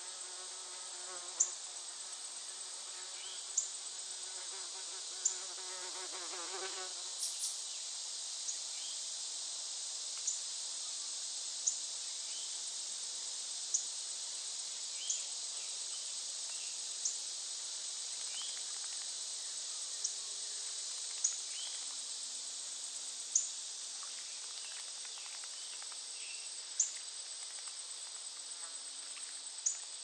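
Steady, high-pitched drone of a summer insect chorus, broken by short, sharp high chirps about every one and a half to two seconds.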